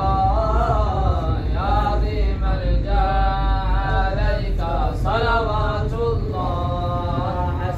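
Melodic vocal chant without instruments: a voice holding and bending long notes in a continuous sung line, over a steady low rumble from the car driving.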